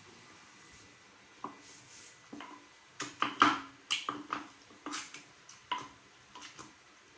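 Kitchen utensils and cookware clinking and knocking: a scattered series of sharp knocks, busiest about three to four seconds in.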